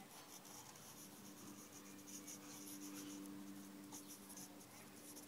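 Faint scratching of drawing or writing on paper, over a low steady hum.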